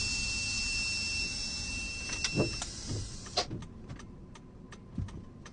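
Ignition interlock breathalyzer giving one steady high beep for about two and a half seconds while a person blows hard into its mouthpiece. The breath makes a rushing hiss that stops about three and a half seconds in, followed by a few light clicks and knocks.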